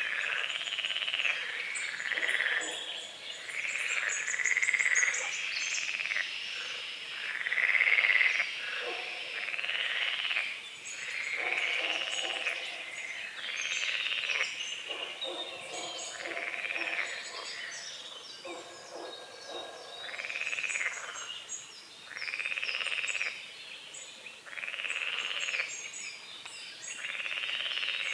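Frogs croaking in a lakeside chorus, one drawn-out call after another about every two seconds, with small birds chirping faintly above them.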